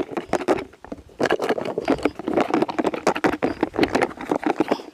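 Rattling and clattering of food pieces being shaken and tossed in a bowl to coat them in marinade, a dense run of quick, irregular clicks and knocks.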